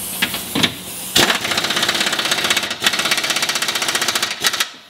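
Impact wrench hammering as it runs a 22 mm lower control arm bolt down into the threaded subframe and tightens it. It gives a few short bursts in the first second, then a rapid, continuous hammering for about three and a half seconds that stops just before the end.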